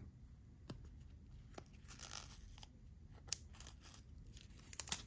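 Clear plastic film being peeled off a small temporary tattoo between the fingertips: a soft peeling rustle and crinkling, with a few sharp crackles, the loudest near the end.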